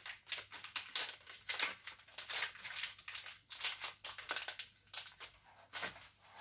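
Plastic bags and packaging rustling and crinkling in the hands, in irregular bursts.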